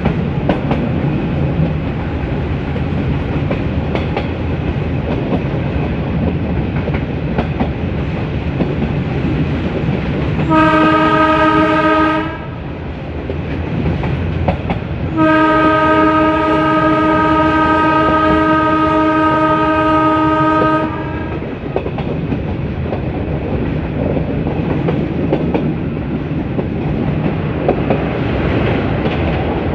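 Metre-gauge train running, its wheels clattering over the rail joints, while the YDM4 diesel locomotive's multi-tone horn sounds a short blast about ten seconds in and then a long blast of about five seconds a few seconds later.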